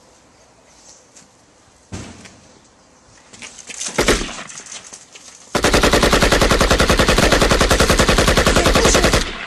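Automatic gunfire sound effect for a toy assault rifle: one sharp bang about four seconds in, then a long rapid machine-gun burst lasting about three and a half seconds.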